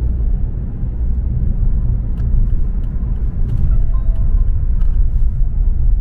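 Volvo S60 D2 diesel heard from inside the cabin while driving on an expressway: a steady low engine and road rumble that grows a little louder after about two seconds as the car picks up speed.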